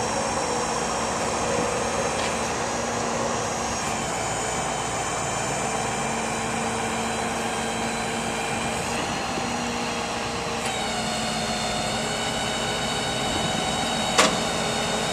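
Stellar 7621 hydraulic crane working as its boom is raised: a steady hydraulic drone with a high whine whose pitch shifts about four seconds in and again about two-thirds through, and a single sharp click near the end.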